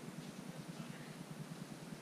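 Faint, steady outdoor background: an even hiss with a low steady hum, and no clear sound event.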